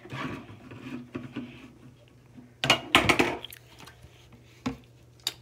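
Sticky squishy toy balls ('globs') being handled and rinsed in soapy water in a sink: soft wet rubbing, then a cluster of sharp slaps and clicks about three seconds in, and a couple of single clicks near the end.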